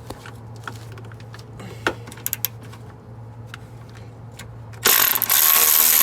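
Scattered metallic clicks of hand tools working on underbody bolts and brackets. About five seconds in, a power tool, most likely an impact wrench on a bolt, starts suddenly and runs loudly.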